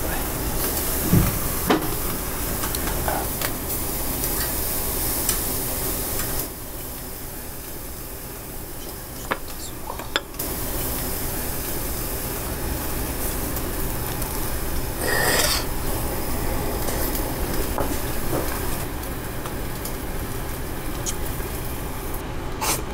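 Beef sizzling on a yakiniku grill over open flame: a steady hiss that drops quieter for a few seconds, broken by a few sharp clicks and one brief louder burst about two-thirds of the way through.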